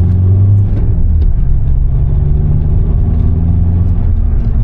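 VW Jetta driving, heard from inside the cabin: a steady low engine drone with road rumble underneath.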